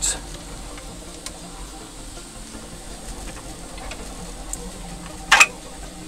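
Faint handling noise of an Allen key working the two screws that hold the nozzle on a Bambu Lab P1P's tool head, over a steady low hiss. One short, sharp scrape about five and a half seconds in is the loudest sound.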